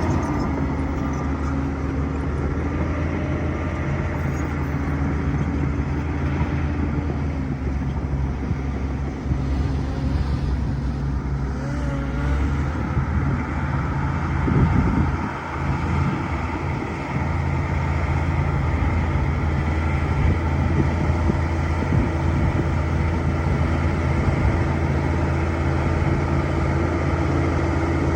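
Bulldozer's diesel engine running steadily, working under load, its note changing briefly around the middle.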